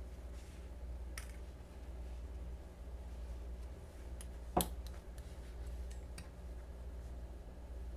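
Small clicks from a butterfly knife being handled: a faint click about a second in, one sharper click about halfway through, and a few light ticks after it, over a low steady hum.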